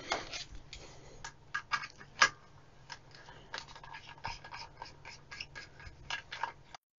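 Small, sharp clicks and scrapes of metal on plastic: a bit taken from a plastic screwdriver bit case, then a small Torx screwdriver working the screws of a plastic handheld thermal imager's housing. The sound stops abruptly near the end.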